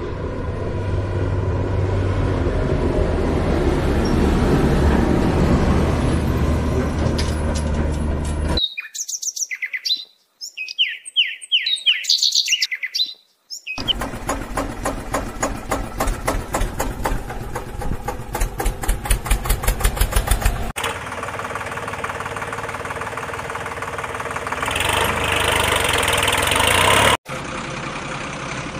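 Vehicle engine sound effects laid over toy play: a low steady engine rumble, cut abruptly to a few seconds of bird chirping about nine seconds in, then an engine chugging with a fast even beat, then another engine running that cuts off sharply near the end.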